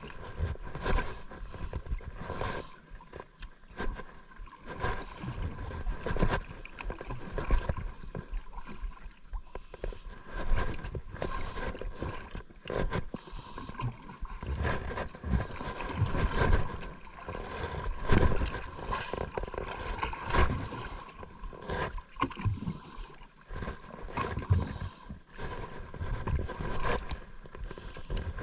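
Sea water slapping and sloshing against a small outrigger boat's hull in an irregular stream of knocks and rushes, with wind buffeting the microphone. A faint steady hum sits underneath.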